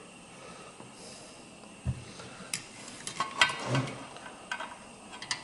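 Small clicks and taps of tools and metal hardware being handled while a small nut is worked into place, with a dull thump about two seconds in and a cluster of clicks near the middle.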